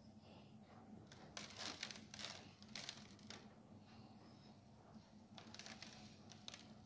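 Faint rustling and pattering of cake-dust crumbs being sprinkled onto a plastic cup lid and the table, in two spells, over a faint steady low hum.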